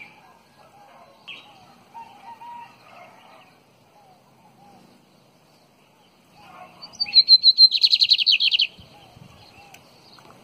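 Caged lined seedeater (bigodeiro) singing one loud song burst about seven seconds in: a few high notes that run into a rapid trill, lasting about two seconds. Faint chirps of other birds before it.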